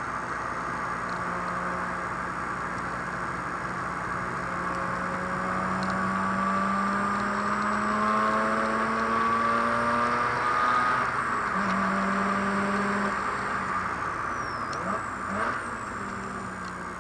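Mazda RX-8's rotary engine heard from inside the cabin, pulling with its pitch slowly rising for about ten seconds. A short break follows, like a gear change, and then the engine eases off near the end.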